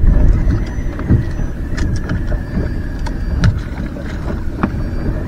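Wind rumbling on the microphone aboard a small anchored boat, with several sharp clicks and knocks scattered through it.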